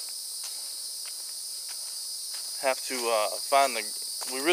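Steady high-pitched chorus of insects in summer woodland, with faint footsteps on the trail in the first couple of seconds.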